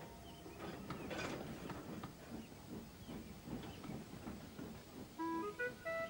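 Faint jumble of clicks and rustling noise, then a flute-like tune of held, stepping notes starts about five seconds in.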